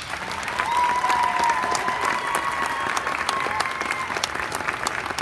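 Audience applauding in a gymnasium at the end of a twirling routine, with one long high-pitched call from the crowd held for about three seconds over the clapping.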